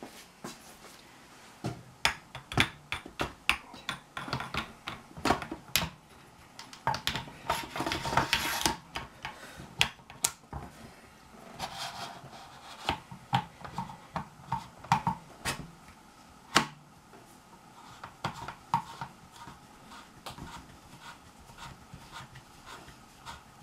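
Handling and reassembly of a Hatsan Gladius bullpup air rifle: a string of sharp clicks and knocks from its parts being fitted and set down, with a stretch of scraping about seven to nine seconds in. The sounds thin out after about seventeen seconds.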